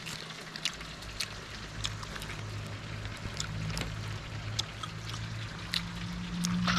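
A steady low motor hum that strengthens near the end, over a haze of running water, with scattered sharp clicks.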